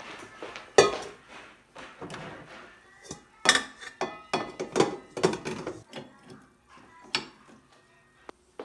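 Kitchen clatter: dishes and utensils knocking and being set down on hard surfaces in a quick, irregular series of sharp knocks, the loudest about a second in and again around three and a half to five seconds in.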